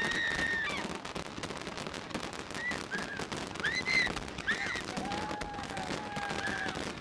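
Fireworks crackling in a dense, rapid stream of pops. Several short high tones that rise and fall in pitch sound over the crackle, then a longer, lower held tone from about five seconds in.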